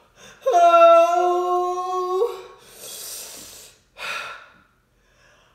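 A man's long cry held at one steady pitch, from the burn of extra-spicy noodles, followed by a hard rush of breath and a short gasp.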